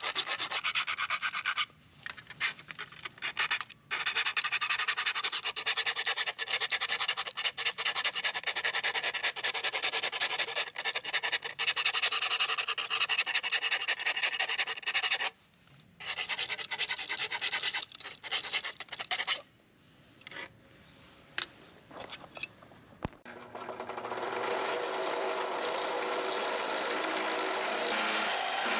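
Hand abrading: rapid rubbing and scraping strokes of filing or sanding, stopping briefly several times. Near the end it turns into a steadier, continuous rubbing.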